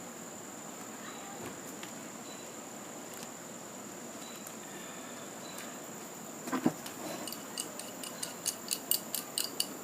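Metal fitting being threaded by hand onto a radiator valve: a knock about two-thirds of the way through, then a run of light metallic clicks, several a second. A steady high-pitched tone sits underneath.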